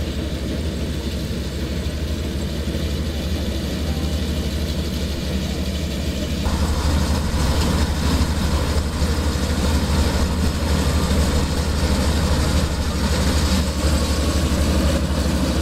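Mechanical rice harvester's engine running steadily with a deep hum. About six seconds in it grows louder and noisier, as if more of the machine has come under load.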